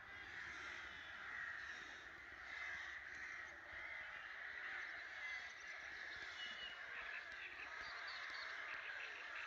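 A crow colony with many crows cawing at once, overlapping into a dense, continuous chorus.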